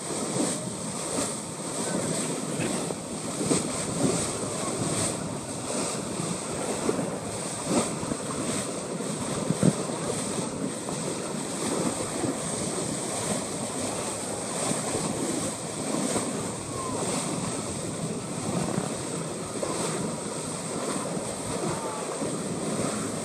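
Wind buffeting the microphone and water washing against a boat's hull, with the boat's engine running underneath in a steady, uneven rush.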